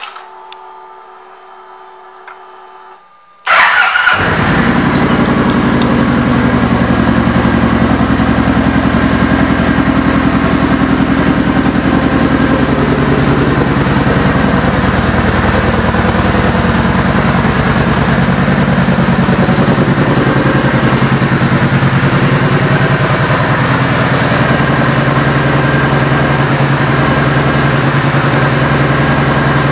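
Kawasaki Vulcan 1700 Vaquero's V-twin, fitted with an aftermarket exhaust, starts about three and a half seconds in and settles into a steady idle.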